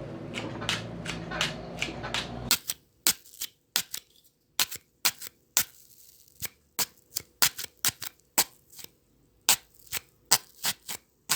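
Foley stabbing effect: a knife jabbed repeatedly into a raw carrot, giving a fast irregular series of short, sharp, crunchy stabs, about two to three a second.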